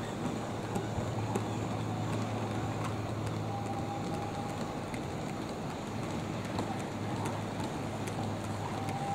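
A 00 gauge model goods train of vans running along the track: a steady low motor hum with the wheels rolling and light, irregular clicks.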